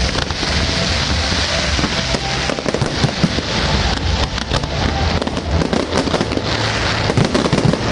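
Fireworks going off: a dense, continuous crackle of many rapid small pops and bangs, without letup.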